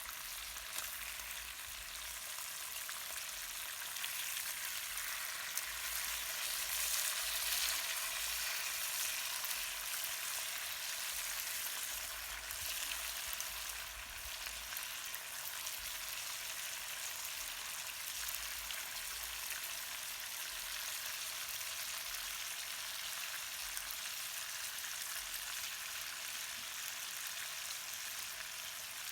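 Fish frying in hot oil: a steady crackling sizzle that swells for a few seconds and then settles back.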